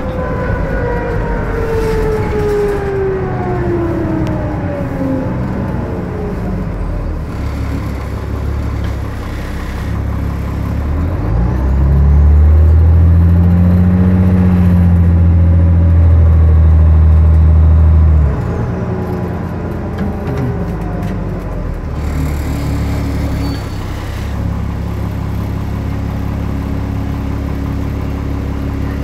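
Cabin sound of a 2006 New Flyer D40i city bus with a Cummins ISL diesel and Allison B400R5 automatic transmission. A whine falls in pitch over the first few seconds as the bus slows. About eleven seconds in, the engine comes in with a loud, low drone for roughly six seconds while pulling ahead; it drops off suddenly at a gear change and settles into a steadier running sound.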